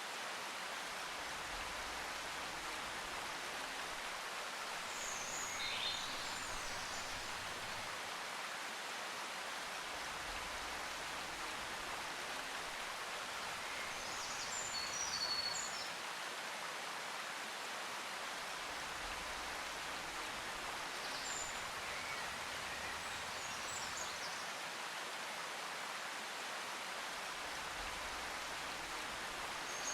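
Steady rushing noise like running water or rain, with a few short, high bird chirps scattered through it.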